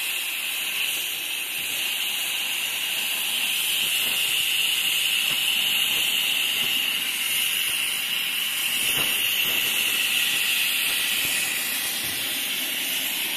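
Compressed air hissing steadily from the opened valve of a firefighter's breathing-air cylinder, blown onto burning barbecue charcoal to fan the fire.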